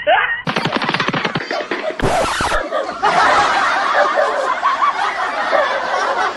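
Comic laughter sound effects dubbed over the footage: quick giggling at first, a brief burst of hiss about two seconds in, then a longer, denser stretch of laughter.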